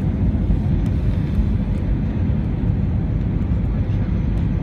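Airbus A320 in flight, heard from inside the passenger cabin: a steady, loud, low rumble of engine and airflow noise with a faint constant hum.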